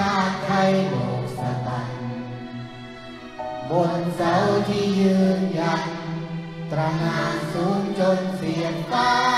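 A man singing a song into a microphone, backed by an orchestra with violins and a children's choir, in three phrases of about three seconds each.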